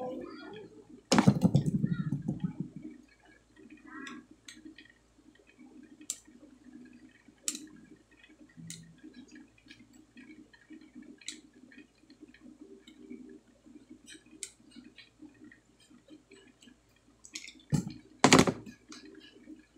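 Scattered small clicks and taps of a circuit board being handled and worked on, with a louder rough, buzzing stretch about a second in and two loud sharp knocks near the end.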